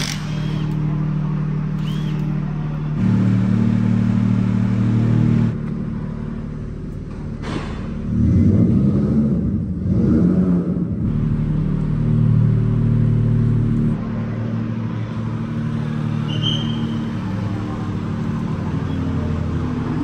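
Rally car engines running close by, a steady low engine note that changes abruptly several times, with louder revving in the middle and an occasional knock.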